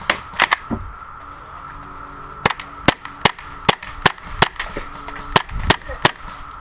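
Airsoft guns firing single shots, a string of sharp cracks about two to three a second, with a pause between a few shots at the start and a longer run from about two and a half seconds in. A faint steady high tone runs underneath.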